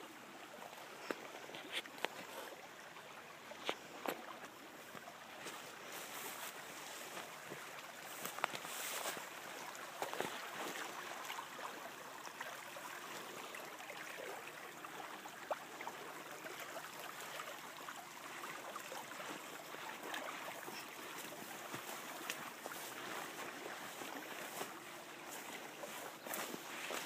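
Tall weeds and brush rustling and snapping against the phone as someone pushes on foot along an overgrown irrigation ditch, with scattered footsteps over a steady hiss.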